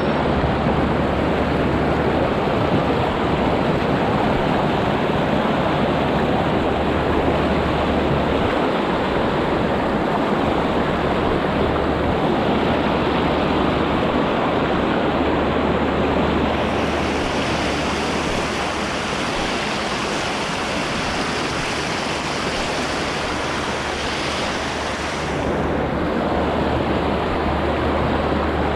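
Steady rushing of a fast river, close and loud, turning brighter for several seconds past the middle.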